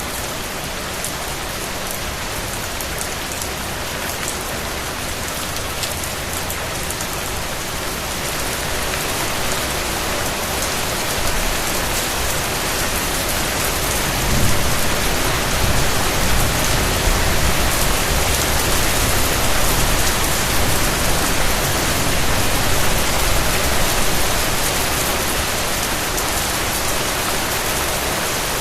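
Steady rain falling, a dense even patter. A low rumble swells up about halfway through, holds for several seconds and then eases off.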